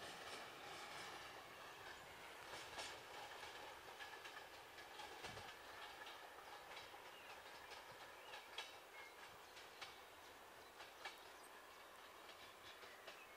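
Passenger coach wheels clicking over rail joints and points as the train pulls away: faint, irregular clicks over a low rumble, growing slightly fainter.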